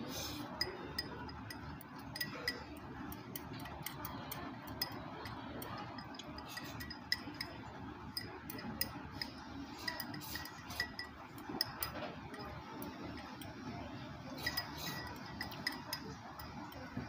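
Chopsticks and tableware clinking against ceramic bowls during a meal: irregular small clicks, some with a short ring, over a steady room hum.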